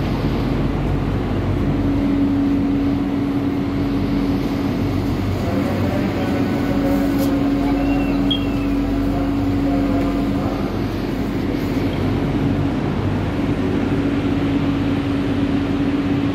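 Steady hum of an LRT Jabodebek train car standing at a station with its doors open, with a constant mid-pitched tone over it that drops out for a couple of seconds near the middle.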